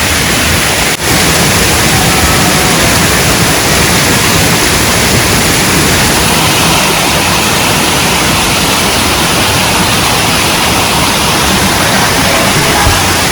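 Waterfall's falling water making a loud, steady rushing noise close by, with a brief drop about a second in.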